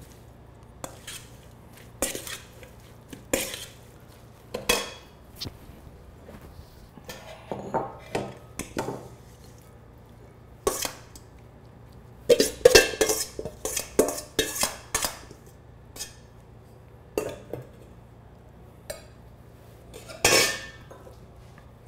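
Stainless steel mixing bowl being handled as a carrot salad is tossed in it and tipped into a serving bowl: irregular clanks and scrapes of metal on bowl and countertop, with a busy run of clatter about midway and one more knock near the end.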